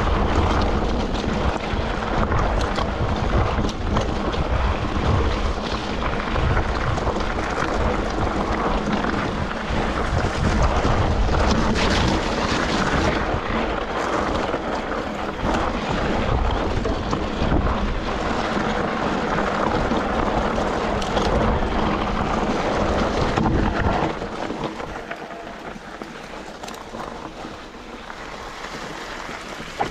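Wind buffeting the microphone with a low rumble, as on a moving ride. It drops much quieter about 24 seconds in.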